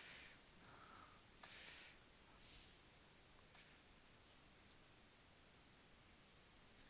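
Faint computer mouse clicks over near silence, several in quick pairs like double-clicks.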